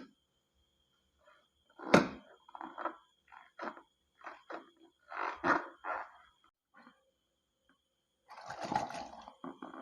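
Slime squelching and popping in short, irregular wet bursts as it is squeezed and mixed by hand, with one sharp snap about two seconds in and a longer stretch of squishing near the end.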